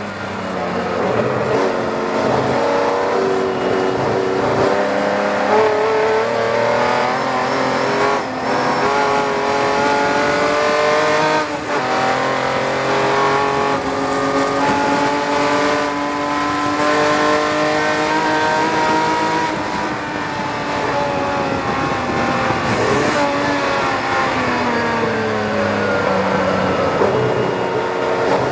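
Tojeiro Jaguar's Jaguar straight-six racing engine at full throttle, heard on board the open-cockpit car. The note climbs through the gears with a brief break at each upshift, then falls away late on as the car brakes and downshifts for a corner.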